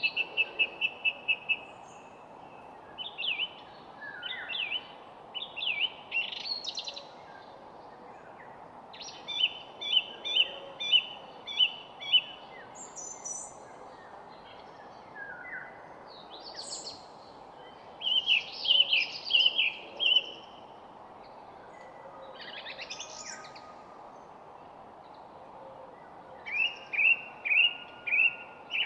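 Songbirds singing: short phrases of quickly repeated chirps that come every few seconds, over a steady background hiss.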